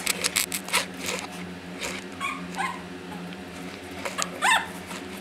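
Chihuahua puppy whimpering with a few short yelps, the loudest about four and a half seconds in, with quick clicks of its claws on a tiled floor in the first second.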